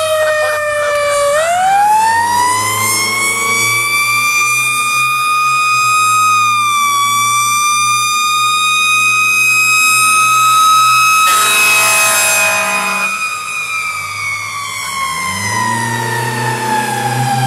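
Fire truck siren winding up from a low pitch to a high held wail, then slowly sliding down in pitch near the end. An air horn blasts for about two seconds past the middle, and the truck's engine revs up toward the end as it pulls away.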